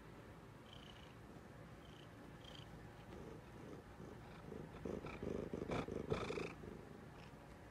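Domestic cat purring close up. The purr grows louder about halfway through, is strongest for a second or two, then fades.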